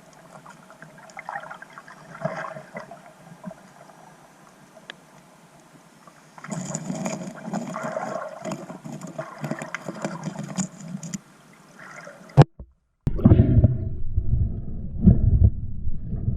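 Water gurgling and bubbling, muffled as heard through a diving camera's housing, growing louder about six seconds in. A sharp knock comes just after twelve seconds, then louder, fuller water noise.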